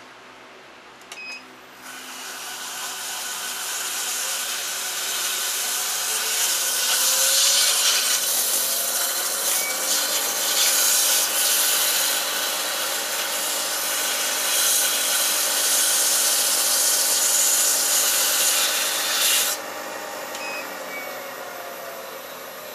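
150-grit sandpaper rubbing against a small wooden yoyo half spinning on a Record Power wood lathe: a steady hiss of abrasive on wood over the lathe motor's hum. The sanding starts about two seconds in and stops about three seconds before the end, while the motor's whine rises in pitch partway through and falls near the end.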